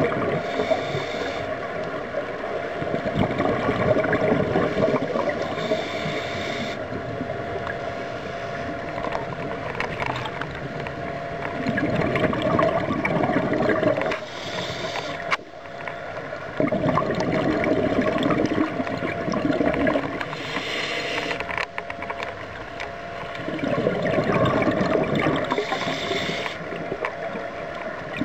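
Scuba regulator breathing heard underwater through the camera housing: a short hiss on each inhale, then a gurgling rush of exhaust bubbles on each exhale, repeating about every five to six seconds, over a faint steady hum.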